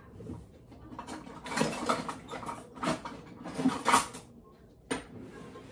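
Kitchen utensils scraping and clinking against a glass plate and bowl, with several short bursts about a second apart, the loudest near the end, then one sharp click.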